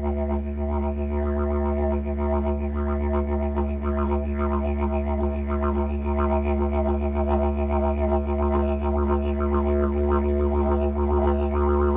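Lightweight didgeridoo played as a steady low drone on one note, with quickly pulsing overtones shaped by the player's mouth over it.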